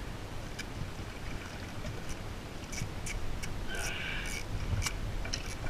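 Steady low wind rumble over open water at a boat's side, with scattered sharp clicks and a short hiss about four seconds in.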